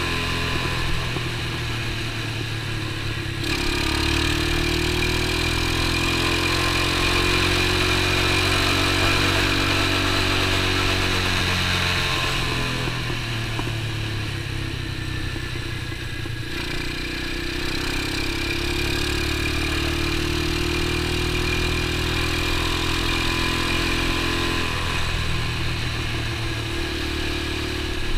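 X19 super pocket bike's small single-cylinder engine running while riding. It revs up and holds from about four seconds in, eases off around twelve seconds, pulls again, then eases off near the end.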